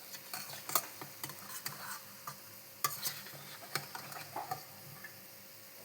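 Stirring food in a cooking pan: irregular scrapes and clicks of a spoon against the pan over a faint sizzle.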